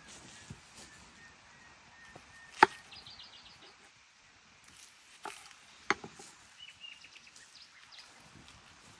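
A knife knocking on a wooden cutting board while cutting an onion: a few sharp knocks, the loudest about two and a half seconds in, two more near six seconds. Birds chirp briefly in the background.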